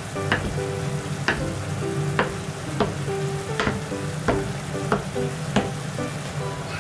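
Kitchen knife slicing through a block of silken tofu and knocking on a wooden cutting board at the end of each cut. There are about eight sharp knocks, roughly one every three-quarters of a second.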